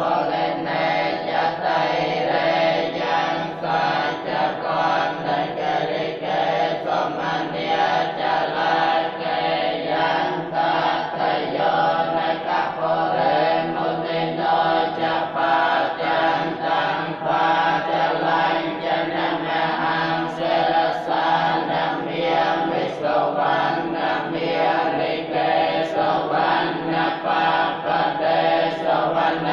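A group of Buddhist monks chanting together, men's voices in one continuous, steady recitation.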